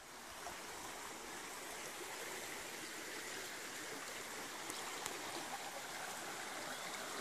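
A stream flowing steadily, an even, unbroken sound of running water.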